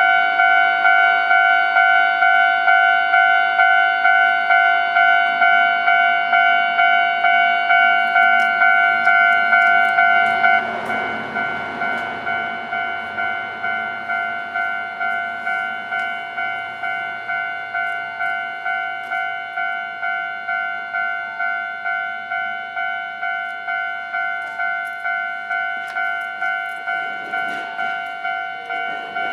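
Japanese railway level-crossing warning bell ringing in a steady repeated pattern, about one and a half strikes a second. About ten seconds in it suddenly drops in loudness and keeps ringing.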